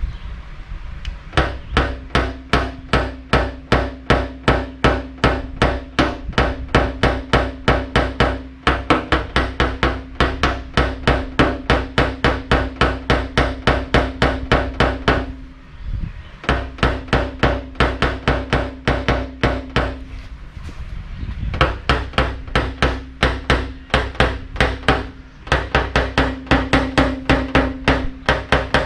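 Paintless dent repair tap-down: a small hammer rapidly striking a knockdown punch held on the car's roof panel, about four taps a second with a ringing note under them, pausing briefly twice. It is knocking down a spot that a glue pull left high.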